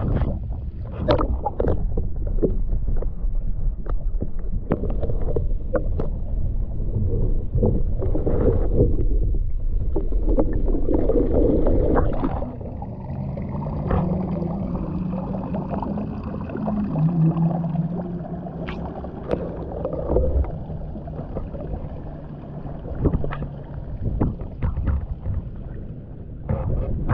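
Shallow water splashing and sloshing against rocks at the water's edge, with knocks and wind buffeting on the microphone. About halfway through the splashing eases and a low steady hum comes in.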